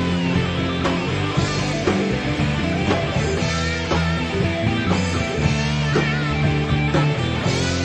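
Rock band playing an instrumental break: a lead guitar plays bending notes over steady bass and drums.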